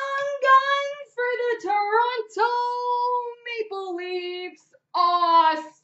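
A woman's high-pitched, wordless sing-song squealing in several drawn-out phrases, an excited reaction to pulling an Auston Matthews Young Guns rookie card.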